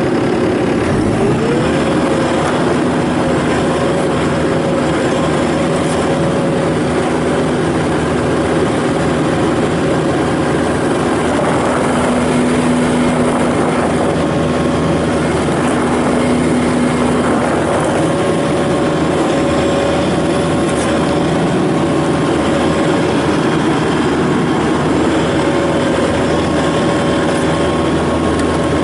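Bobcat S750 skid steer loader's diesel engine running at working speed while the machine is driven and its hydraulics worked, with a steady whine that rises about a second in and then holds.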